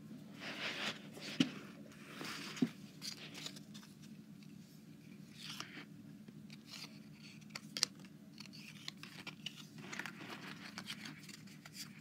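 Pokémon trading cards being handled by hand: a run of soft rustling swishes as cards slide and flip, with a few sharp clicks, the loudest about a second and a half and two and a half seconds in and another near eight seconds.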